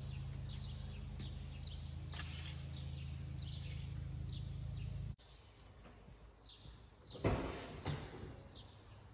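Faint background: a steady low hum that stops abruptly about five seconds in, with small birds chirping repeatedly throughout. A short rustle of paper towel comes near the end.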